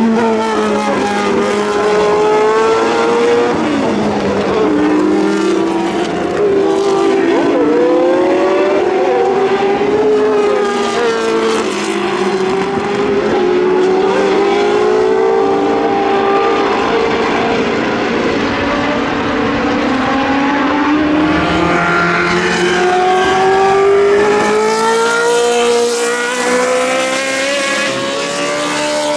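Historic Formula 1 cars' racing engines passing at speed, several at once, the pitch sweeping up under acceleration and dropping through gear changes and braking.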